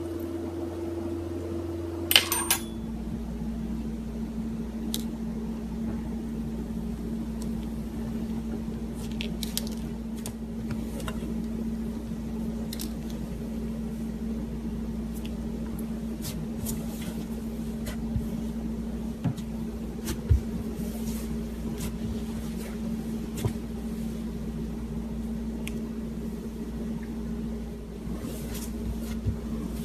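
Steady hum of a running appliance or small motor. A sharp click about two seconds in drops the hum to a lower, steady pitch, and faint clicks and taps are scattered through it.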